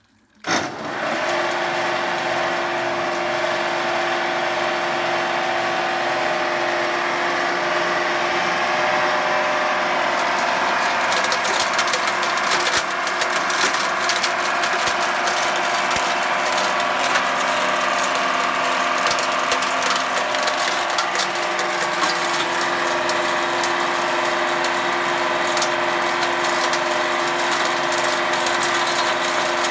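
An electric-motor-driven hammer mill starts up about half a second in and runs steadily with a hum. From about eleven seconds in, rapid clattering and rattling joins it as quartz ore poured into the hopper is smashed by the hammers.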